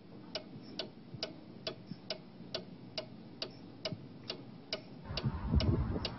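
Clock ticking steadily, a little over two ticks a second. About five seconds in, a low rumble rises under the ticking and becomes the loudest sound.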